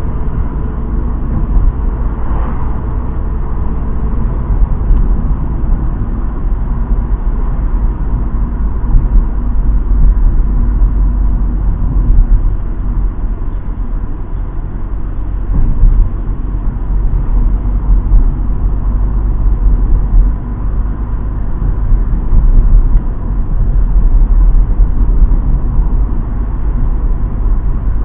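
Car cabin noise while driving: a steady low rumble of the engine and tyres on the road, picked up by an action camera's built-in microphone.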